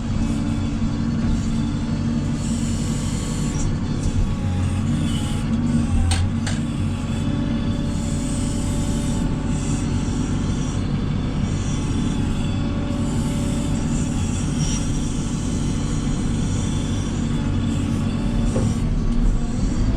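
A JCB 3CX backhoe loader's diesel engine running steadily under work, its pitch briefly shifting a couple of times, about six seconds in and near the end.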